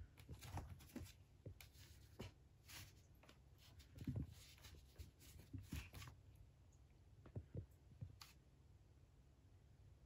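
Soft scratches, taps and light thumps of cats' paws on a cardboard cat house, coming irregularly and busiest in the first six seconds.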